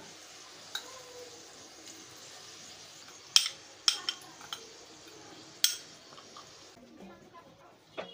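Utensil knocking paste out of a jar into a cooking pot: several sharp clinks and knocks, the loudest about three and a half seconds in, over a steady hiss that cuts off near the end.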